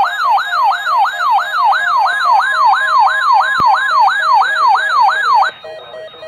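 Electronic siren-style alarm tone: a fast, evenly repeating downward sweep, about three a second, over a steady lower tone. It cuts off suddenly about five and a half seconds in, leaving fainter steady electronic tones.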